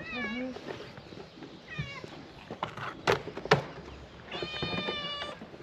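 Stray cats meowing: two short meows early, then one long, steady meow near the end. Two sharp knocks about three seconds in.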